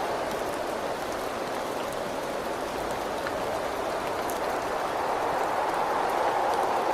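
Steady rain beating on a window, with scattered sharp ticks of single drops. It swells slightly near the end.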